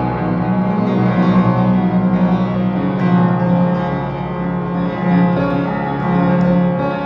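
Instrumental music with sustained, overlapping notes and no clear beat.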